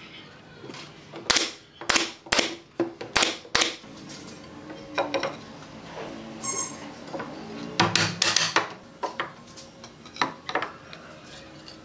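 Pine boards knocking against a wooden frame as they are set into place by hand: a quick run of sharp wooden knocks early on, then scattered knocks and clatter.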